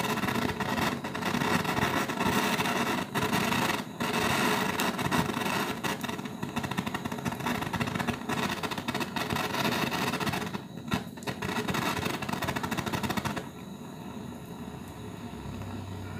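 Gas torch blowing steadily against a steel ladle of old solder scraps to melt them, with scrapes and clicks of a stick stirring the metal. The torch noise drops sharply about 13 seconds in.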